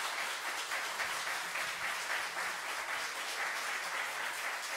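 Concert audience applauding, a steady, even clapping with no music under it.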